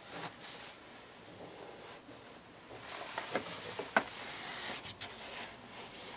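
Close rustling and rubbing with a scatter of small clicks; the sharpest clicks come about four and five seconds in.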